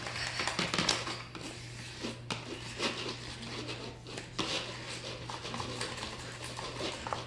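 A spoon stirring and scraping through thick, sticky slime in a bowl, with irregular clicks and scrapes as the slime comes together. A steady low hum runs underneath.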